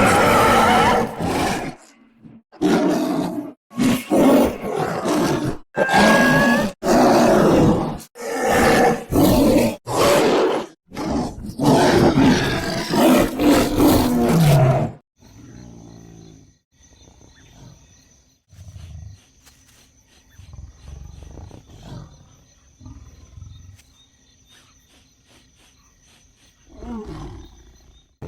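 Sound-designed sabre-toothed cat (Smilodon) vocal effects. For about the first half there is a run of loud, separate roars and snarls with short gaps between them. It then drops to quieter low growls and breaths over a faint steady high tone, with a louder snarl rising near the end.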